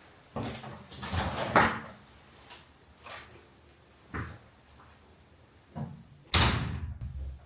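Household items being handled: a series of light knocks and clatters, as of things set down or a cupboard or drawer worked, followed by a longer rustling or sliding sound near the end.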